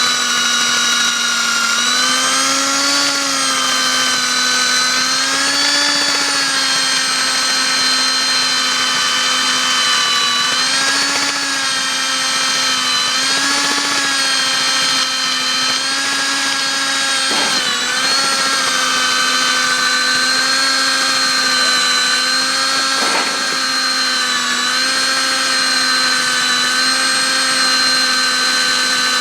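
Diamond core drill running together with a vacuum cleaner: a steady motor whine whose pitch dips and recovers every few seconds while drilling, with a couple of short knocks.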